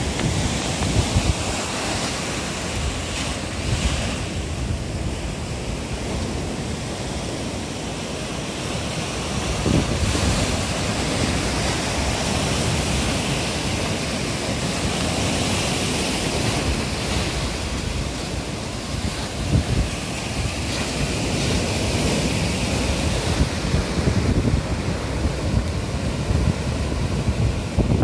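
Heavy typhoon surf: waves breaking and white water washing up the shore, a continuous rushing noise. Wind buffets the microphone in gusts.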